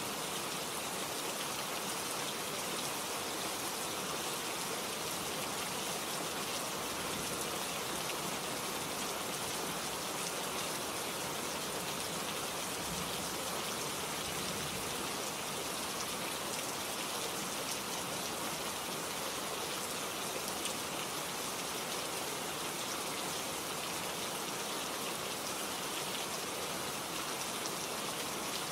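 Steady rain falling, a dense even patter of raindrops with no let-up.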